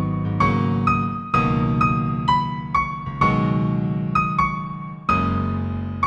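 Solo piano playing a slow, gentle new-age piece in F major. It has single melody notes at about two a second over held low chords that change every couple of seconds.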